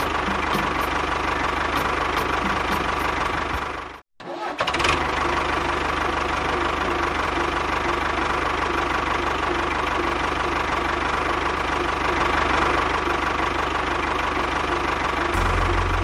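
A tractor engine running steadily with a chugging, knocking note. It cuts out suddenly about four seconds in and comes back half a second later.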